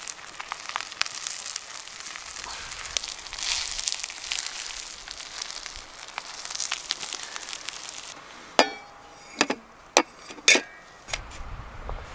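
Bread toasting in a grill pan over a fire, a steady sizzle with small crackles. After about eight seconds this gives way to four sharp, ringing metal clinks a little under a second apart, like steel plates set down on a tray, and a low wind rumble starts near the end.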